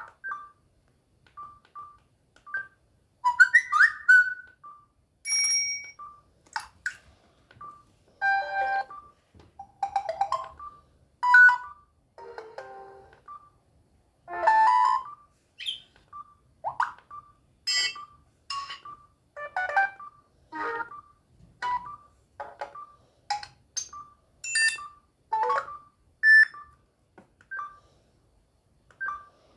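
Samsung GT-C3593 mobile phone's loudspeaker playing a string of short snatches of ringtones and alert tones, each a second or less and cut off before the next begins. A brief high beep repeats between them about once a second.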